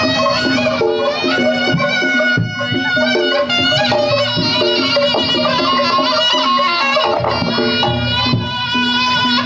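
Reog Ponorogo gamelan accompaniment: a shrill slompret shawm playing a wavering melody over repeating gong-chime notes and drums.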